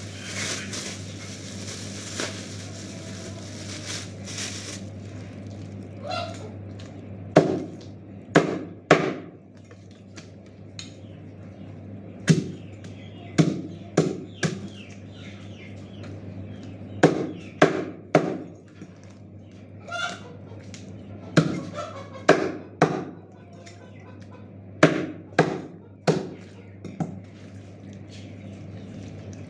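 Meat cleaver chopping raw chicken on a cutting board: about eighteen sharp chops in quick groups of two to four, a few seconds apart. At the start, a plastic bag rustles for a few seconds before the chopping begins.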